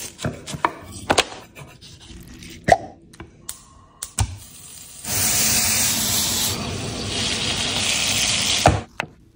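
A few scattered knife-and-board knocks and clicks of kitchen prep, then, about five seconds in, a chicken breast sizzling loudly in oil in a frying pan for nearly four seconds, cutting off suddenly with a knock.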